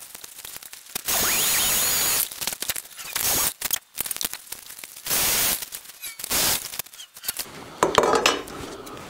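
Hands working a Kydex plastic part against an aluminum channel and a wooden block: scattered clicks, knocks and rubbing. These are broken by three bursts of steady rushing hiss, the first and longest about a second in.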